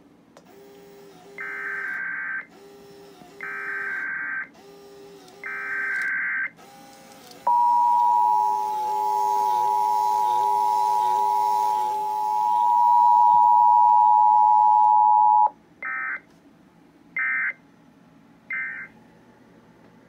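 Sage EAS Endec sending an Emergency Alert System weekly test through the rack's speaker. It begins with three data bursts of about a second each (the SAME header), followed by the steady two-tone attention signal held for about eight seconds. Three short end-of-message bursts close it out.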